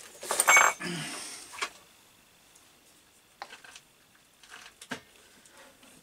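Clatter of objects being handled and set down on a workbench: a loud clink with a brief metallic ring about half a second in, then a short scrape, and later a few scattered light clicks and knocks.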